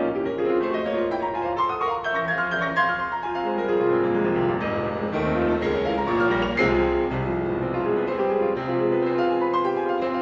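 Background music played on piano, a steady flow of notes with low bass notes under them.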